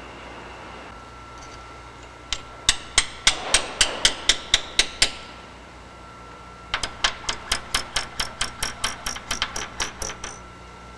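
Hammer tapping on metal in two quick, even runs of sharp strikes, about four a second. The first run has about a dozen strikes; the second, starting after a short pause, has about sixteen.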